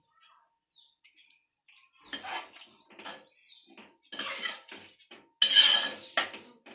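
Metal spoon scraping and clinking against an aluminium pot while stirring a simmering curry, in several short bursts that start about two seconds in.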